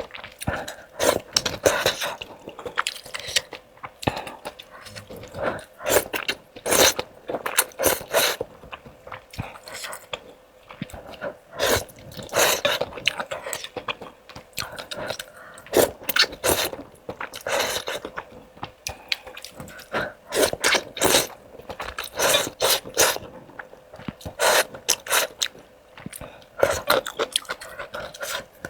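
Close-miked eating of pickled-pepper rice noodles: repeated slurps of the noodles and chewing, with crunchy bites, coming in irregular bursts.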